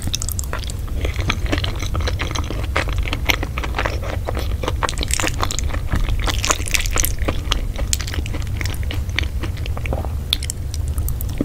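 A person chewing crunchy food close to the microphone: a dense, irregular run of crisp crackles and crunches from the bites, over a steady low hum.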